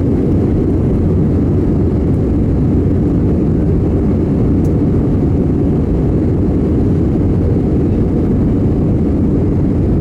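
Airbus A320 cabin noise: a steady, loud, low drone of the jet engines and airflow.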